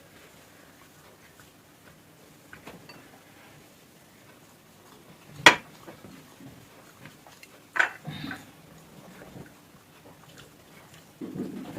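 Close-up eating sounds: chewing and handling food on a plate, with a sharp click about five and a half seconds in and another about two seconds later.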